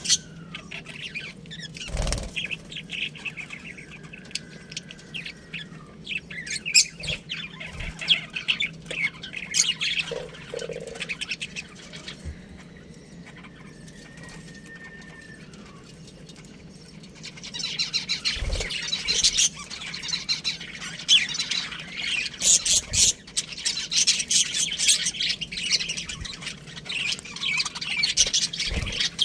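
Budgerigars chirping and chattering in quick, high twitters that come in bursts, thinning out for a few seconds in the middle, then growing dense and busy for the last ten seconds or so. A few dull knocks sound among the chatter.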